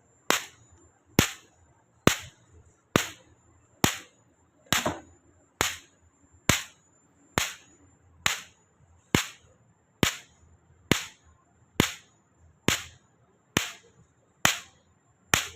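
Solar electric fence energizer (jhatka machine) firing its high-voltage pulses, a sharp snap a little under once a second at an even pace, with a faint high whine between snaps.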